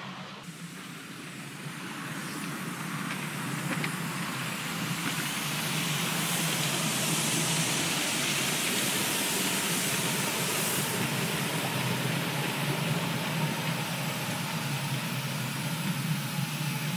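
Miniature ride-on railway train running past on its track. It makes a steady rolling noise that swells over the first couple of seconds.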